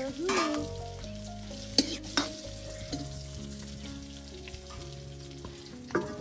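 Food sizzling in a hot frying pan as it is stirred, with two sharp knocks about two seconds in.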